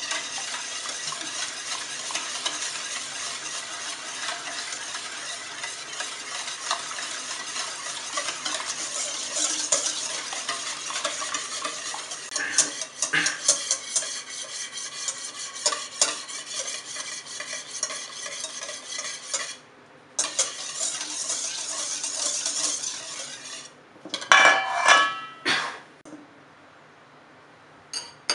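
Balloon whisk beating egg and sugar in a stainless steel bowl: a fast, steady swishing with the wires clicking against the metal, pausing briefly about two-thirds of the way through. Near the end come a few louder metal clinks, then it stops.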